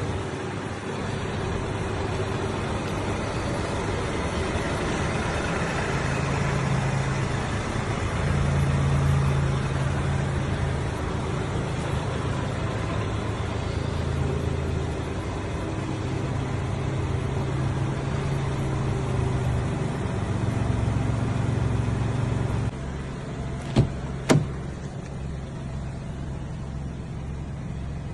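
Mini Cooper C running with a steady engine hum that rises and falls. The sound steps down quieter near the end, followed by two sharp clicks about half a second apart.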